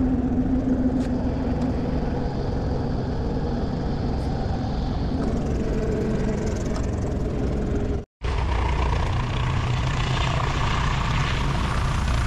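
Light helicopter's engine and main rotor running on the ground after landing, heard from inside the doors-off cabin. The steady hum sinks slightly in pitch and breaks off briefly about eight seconds in, then continues.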